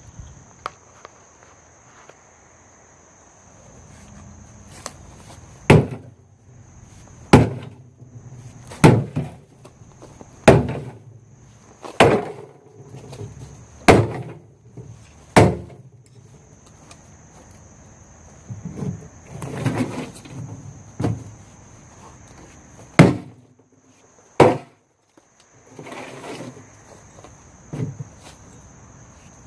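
Axe chopping into a discarded Volvo 240 fuel tank: a run of sharp strikes about every second and a half, then a few more irregular blows in the second half. Crickets chirp steadily in the background.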